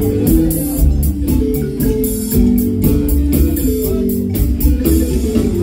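Loud dance music with a steady beat and busy melody notes.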